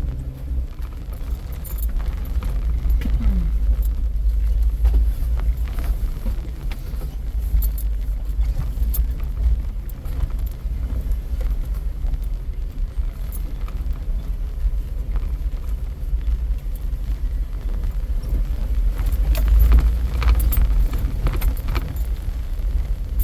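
Low rumble of an off-road vehicle driving slowly over a rough, rocky dirt trail, heard from inside, with scattered rattles and knocks as it jolts over rocks and ruts.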